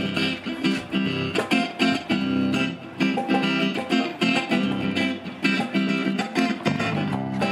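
Live rock band playing through PA speakers: acoustic and electric guitars strummed in a steady rhythm over bass and drums.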